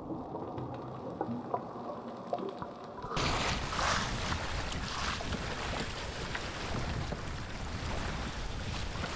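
A dull, muffled underwater wash, then, cutting in about three seconds in, wind on the microphone and open sea sloshing and splashing against a wooden pirogue as a wet fishing net is hauled aboard by hand.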